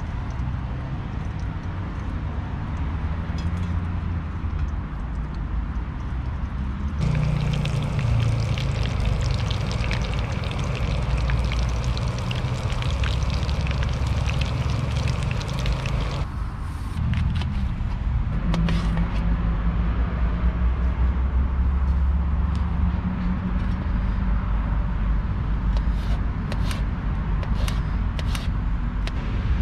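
Steady rumble of road traffic. From about 7 s to 16 s, breaded chicken pieces crackle and hiss as they deep-fry in a pan of hot oil on a camping gas stove. Near the end come a few sharp knocks of a knife chopping cucumber on a plastic cutting board.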